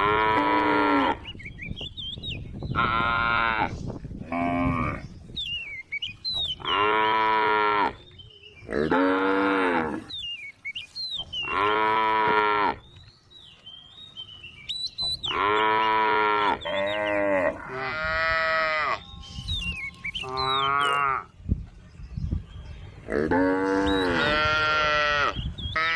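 A group of cows mooing over and over: about a dozen loud calls of about a second each, one after another with short gaps between.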